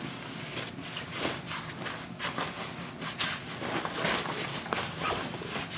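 Irregular clicks, knocks and rustling of plastic and fabric parts as a baby playpen is handled and assembled.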